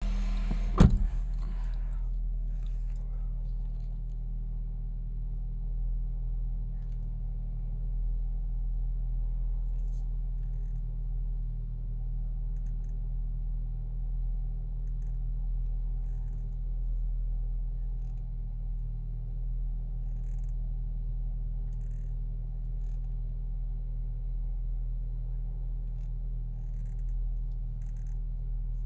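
Volkswagen Tiguan (second generation) running steadily with short, faint squeaks recurring every second or two as the steering wheel is turned: a squeak in the steering. A single sharp click about a second in.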